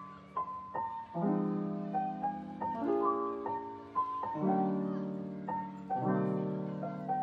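Background piano music: a slow, gentle tune with a new chord about every second and a half under a higher melody.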